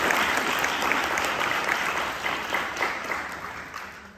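Audience applauding, the clapping dying away toward the end.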